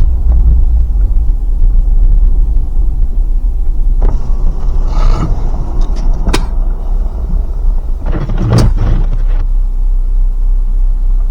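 Car driving slowly through snow: a steady low rumble of engine and tyres, with a few brief knocks and rattles about halfway through.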